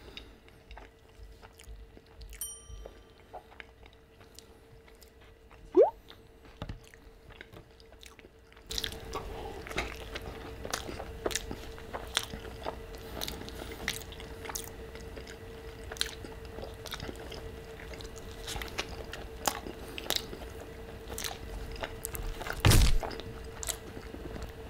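Close-miked chewing of a mouthful of burrito: soft, wet mouth clicks and smacks. About nine seconds in the background gets louder with a steady hum under the chewing, and near the end there is one loud thump.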